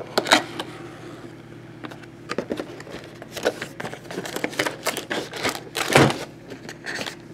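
Keyboard box being opened by hand and its packaging handled: a scatter of light clicks, taps and scrapes, with a louder knock about six seconds in.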